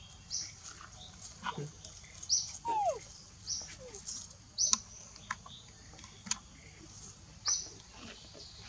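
A bird chirping repeatedly: short, high calls every second or two. Scattered sharp clicks and rustles come from the bamboo as a baby macaque climbs and grips the stalk, and a single squeak falls in pitch about three seconds in.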